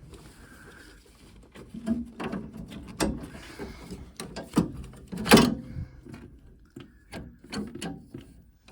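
Irregular clicks, taps and knocks of small plastic and metal boiler parts being handled and fitted, with one louder knock about five seconds in.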